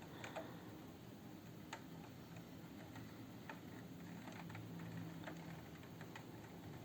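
Raindrops tapping on a window pane from indoors: faint, scattered, irregular ticks against the glass.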